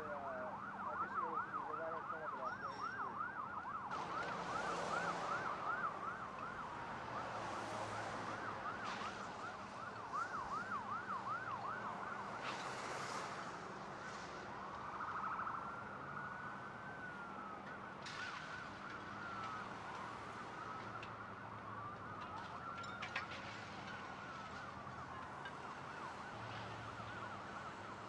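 Emergency vehicle sirens. For the first half a siren runs in a fast yelp of several up-and-down sweeps a second, then slower rising and falling wail sirens take over.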